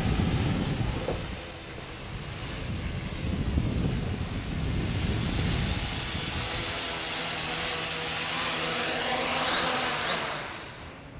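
Quadcopter's motors and propellers running as it flies in low and lands, with a steady high whine over the propeller noise; near the end the motors spin down and stop.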